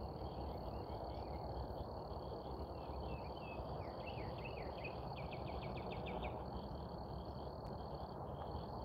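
Crickets trilling with a steady high-pitched note, joined about halfway through by a run of short, quick chirps, over faint low background noise.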